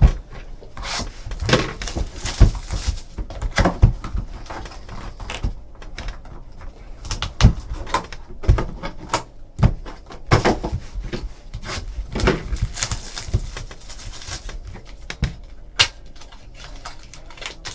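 Trading-card boxes being handled and opened on a table: irregular knocks and clicks of cardboard with rustling packaging in between.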